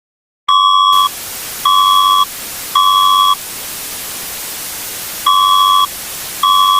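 Electronic emergency-alert beeps over steady static hiss, as used in a mock EAS broadcast. Three short two-pitch beeps start about half a second in, about a second apart, with a brief crackle on the first. After a pause of about two seconds, two more beeps follow.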